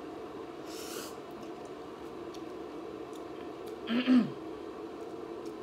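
A short vocal sound from a woman eating, a brief hum or throat noise about four seconds in. Before it come a quick breathy sniff near the start and a steady low room hum.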